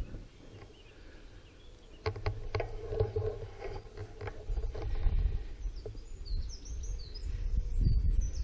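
Outdoor ambience: a low wind rumble on the microphone, with a few sharp knocks and clicks about two seconds in. Over the last couple of seconds a small bird chirps several times in quick runs.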